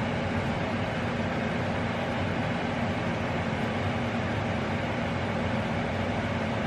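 Steady background noise: an even, unchanging whir with a low hum underneath.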